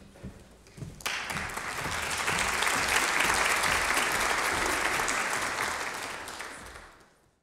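Audience applauding. The clapping starts suddenly about a second in, holds steady, then fades away near the end.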